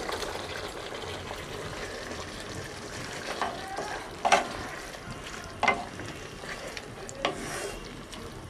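Wooden spatula stirring fried pointed gourds through a thick, simmering mustard-and-poppy-seed gravy in a metal pot, the gravy sizzling steadily underneath. The spatula knocks sharply against the pot four times, starting about a third of the way in.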